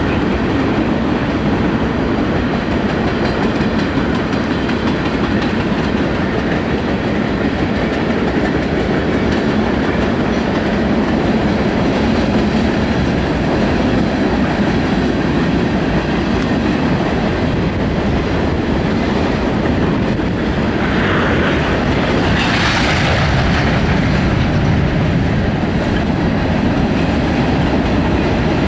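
Freight train cars (tank cars, boxcars and covered hoppers) rolling past, with a steady rumble and clickety-clack of steel wheels over the rail joints. A brief rise of higher-pitched noise comes about three-quarters of the way through.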